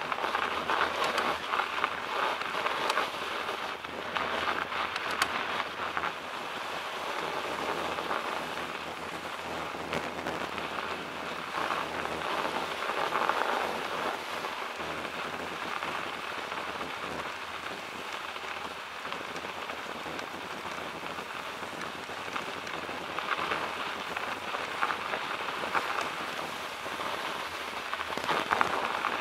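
Bicycle tyres rolling over packed snow: a steady rushing hiss with scattered faint clicks, a little louder near the start and near the end.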